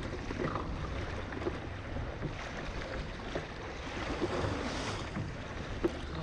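Wind buffeting the microphone over waves splashing around a kayak in rough sea, a steady low rumble and rush of water that swells briefly about four seconds in.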